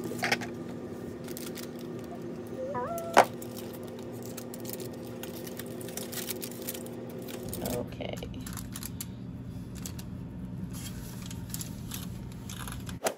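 Cookie dough being handled on a foil-lined baking sheet: aluminium foil crinkling and metal cookie cutters clinking, with one sharp click about three seconds in, over a steady low hum.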